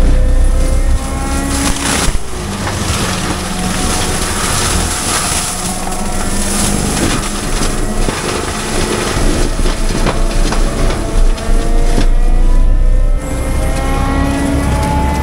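Compact track loader's diesel engine and forestry mulcher running hard under load: a continuous low rumble with whining tones that rise and fall, and a dense grinding hiss through the middle as the mulcher works.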